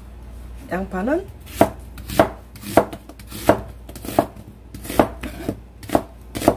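Chef's knife slicing an onion on a plastic cutting board: about eight sharp knocks of the blade hitting the board, roughly one every two-thirds of a second.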